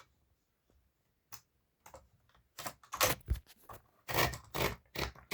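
Hermes Baby portable typewriter being handled: a few isolated light clicks, then from about two and a half seconds in a run of mechanical clicks and rattles that grows louder near the end.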